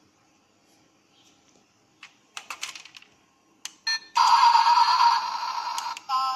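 A few light clicks and a brief rattle, then a loud electronic ringtone-like melody starts about four seconds in.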